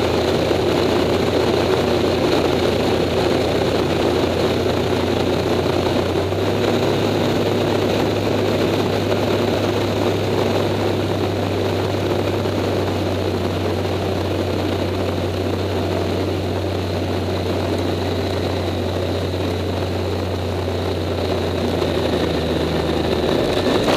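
Acroduster SA750 biplane's piston engine and propeller running steadily, heard from on board, with a broad rush of airflow. The low engine note steps up slightly about six seconds in.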